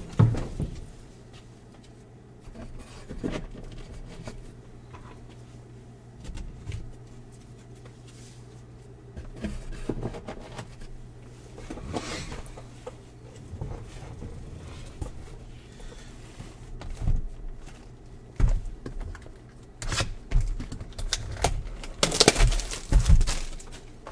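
Paper and packaging being handled and crinkled, with scattered light knocks and a louder burst of crinkling and tearing near the end, as the next box of trading cards is opened.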